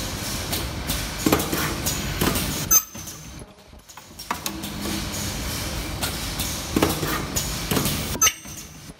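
Elastic-band ultrasonic welding and cutting machine running: its moving parts clack and knock over a steady hum, with short pauses in the cycle about three seconds in and again near the end.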